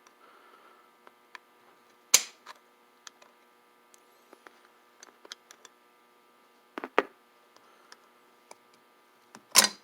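Small metal parts of an antique mortise lock clicking and clinking as they are lifted out of its cast iron case. Three sharper knocks stand out: about two seconds in, about seven seconds in, and near the end. A faint steady hum runs underneath.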